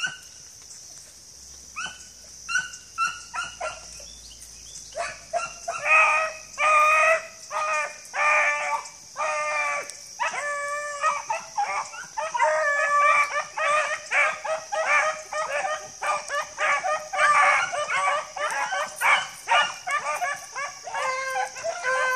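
Pack of beagles baying: a few scattered bays at first, then from about five seconds in many voices giving tongue together, overlapping and getting denser, as hounds in full cry on a scent line.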